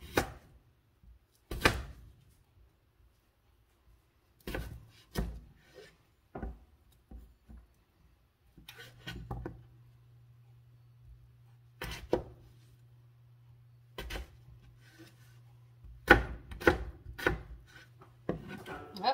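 Chef's knife dicing red potatoes on a plastic cutting board: separate sharp knocks of the blade meeting the board, with a quick run of chops about three-quarters of the way through.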